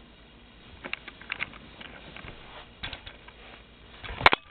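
A dog's claws clicking and scrabbling on the floor in scattered bursts as it chases and pounces, with the loudest cluster of knocks just over four seconds in.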